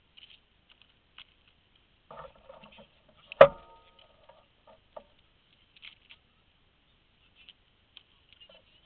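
A bicycle wheel and tyre are handled during a puncture repair: light clicks and rustles, then, about three and a half seconds in, one sharp metallic clank that rings briefly.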